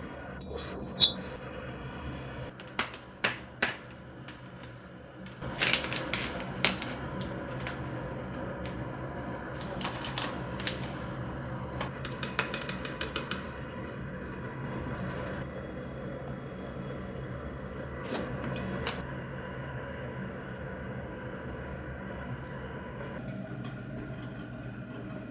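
Kitchen work sounds during curry preparation: scattered clicks and knocks from utensils and cookware, with a quick run of taps about twelve seconds in, over a steady hum.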